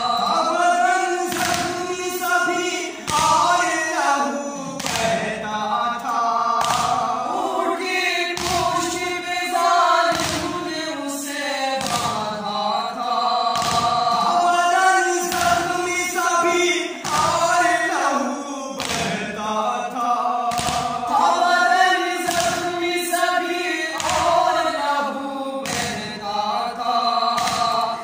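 Several male voices chanting a noha, a Shia lament, in unison without instruments. Chest-beating (matam) thumps land about once a second and keep time.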